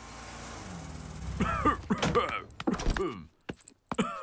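A sick cartoon bear's voice coughing in a string of about five short hoarse bursts, after a soft rising hiss at the start: the cough he has caught.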